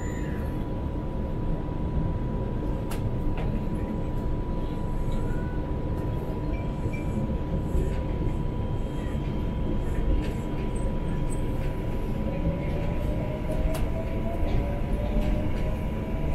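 Cabin noise of a Chongqing Line 3 straddle-beam monorail pulling out of a station: a steady low rumble with a thin, steady high tone. From about three-quarters of the way through, a traction-motor whine rises in pitch as the train accelerates.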